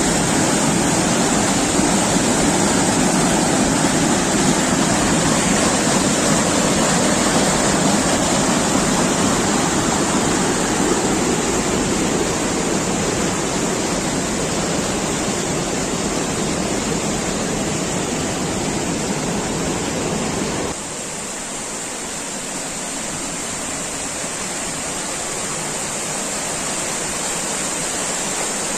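Mountain stream rushing over boulders in a small waterfall: a loud, steady roar of white water. About three-quarters of the way through, the deep part of the roar drops away suddenly and the rush carries on thinner and quieter.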